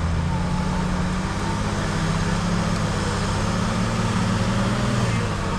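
Off-road 4x4 SUV engine running under load, a steady drone whose pitch rises slightly after a second or so, holds, then eases back down near the end.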